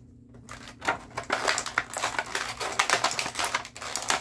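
Clear plastic bag around a toy figure crinkling and crackling as it is handled and pulled open, a dense irregular run of crackles starting about a second in.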